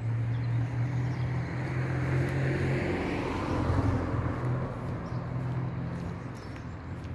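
A vehicle engine running with a steady low hum, its noise swelling to a peak about halfway through and then fading.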